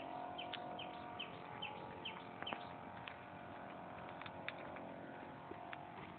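Faint bird chirping: short, high chirps about two a second for the first two and a half seconds, then a few scattered clicks.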